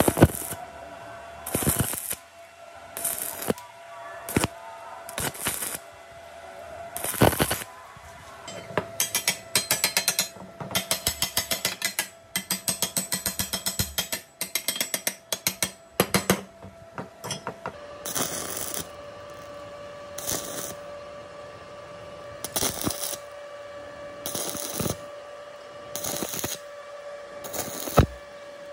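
Stick (arc) welding on a steel tube frame: a series of short crackling tack welds, each about half a second long. In the middle comes a stretch of rapid tapping, several strikes a second.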